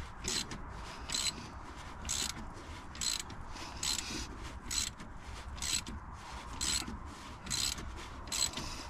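Socket ratchet clicking in short bursts about once a second as it is swung back and forth, winding in the centre bolt of a harmonic balancer puller to draw the crank pulley off.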